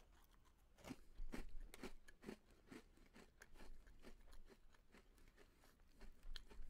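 Faint chewing of a mouthful of Chips Ahoy Chunky chocolate chip cookie close to the microphone, with short crunches about twice a second that thin out after the first few seconds.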